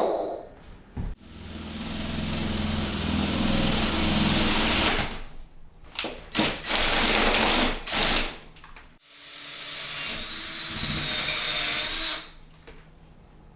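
Power drill running in three bursts, each spinning up and then dropping off, as if boring through a wooden 2x4 for a plumbing line.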